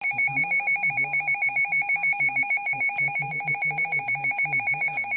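Electronic emergency-alert tone: two high-pitched beeping tones pulsing together rapidly, several times a second, like a ringing telephone, over a low warble.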